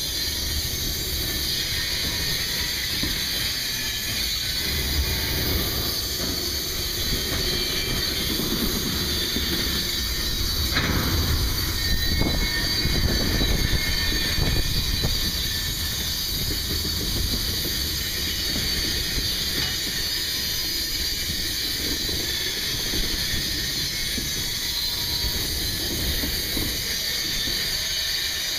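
Freight train cars rolling past at close range: a steady rumble and hiss of steel wheels on the rails, with one sharp knock about eleven seconds in.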